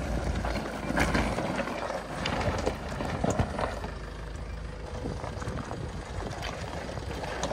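Tata Xenon pickup's diesel engine running under load as the truck crawls in two-wheel drive over loose riverbed stones, with stones crunching and knocking under the tyres.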